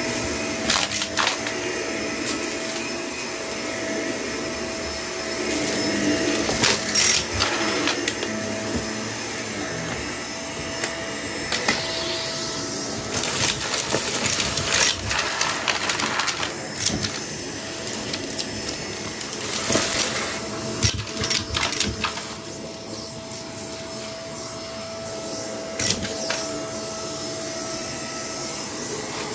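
Vacuum cleaner running with a steady motor whine over carpet and along a baseboard, with scattered crunchy crackles and rattles as small bits of debris are sucked up, thickest around the middle.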